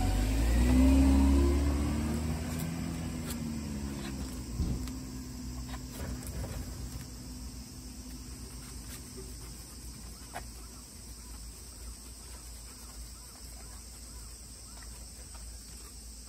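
A motor vehicle driving past, loudest about a second in and fading away over the next few seconds. A few faint clicks follow over a quiet outdoor background.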